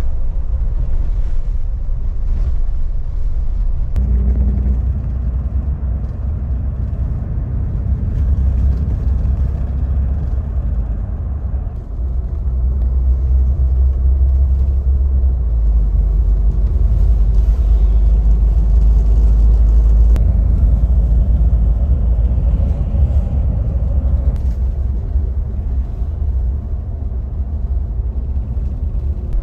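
Coach bus cabin while driving on the highway: steady low rumble of engine and road noise, swelling louder for several seconds about halfway through.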